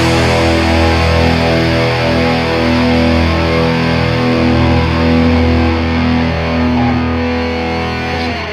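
Punk rock band's distorted electric guitar and bass holding long ringing chords after the drums have stopped, the closing chords of a song. The sound starts to fade near the end.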